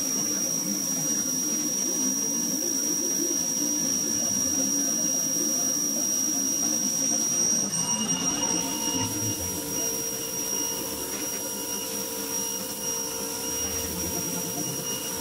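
Ryobi electric pressure washer running: the motor and pump run steadily with a high whine under the hiss of the water jet. The sound changes about halfway through.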